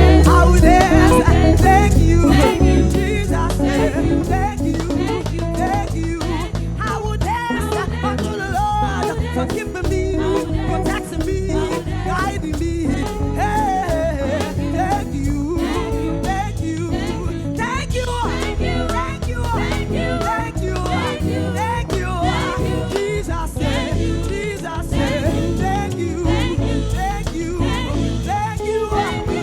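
Live gospel praise band playing an upbeat song with a steady beat and heavy bass, with singing over it.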